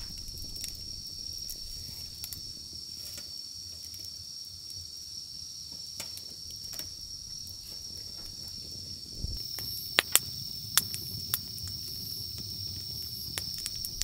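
Wood fire crackling in a metal fire pit, with scattered pops, a few sharper ones about ten seconds in, over a steady high chirring of night insects.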